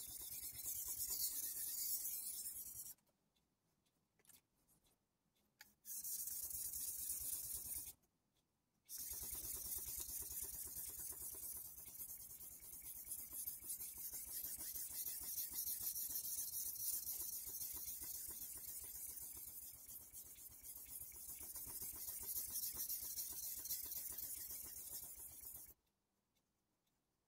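Kai Shun chef's knife blade being stroked back and forth on the wet 1000-grit side of a Kai combination whetstone, a steady scraping hiss of steel on stone. It breaks off three times: for about three seconds a few seconds in, briefly around 8 s in, and again just before the end.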